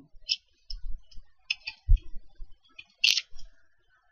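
Irregular computer keyboard keystrokes and clicks, a few at a time with gaps between, the loudest about three seconds in.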